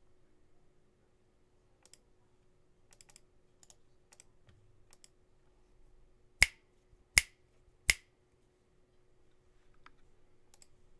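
Drop ALT mechanical keyboard with lubed, filmed Alpaca linear switches and MT3 keycaps: a few light scattered key presses, then three much louder sharp clicks less than a second apart, then a couple more light presses near the end.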